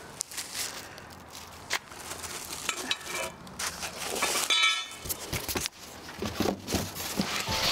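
Plastic wrapping and packaging crinkling and rustling while being handled, with scattered clicks and taps and a brief squeak a little past the middle.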